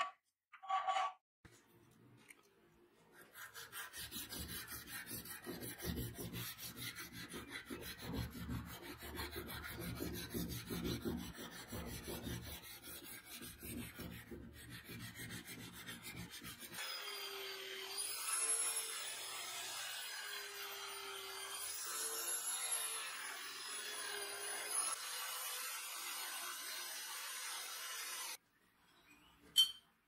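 A hand file scraping back and forth in a run of quick strokes on the brass handle pieces of a butterfly knife. Partway through, the filing turns brighter, with a wavering ringing tone on each stroke. It stops abruptly near the end, followed by a single click.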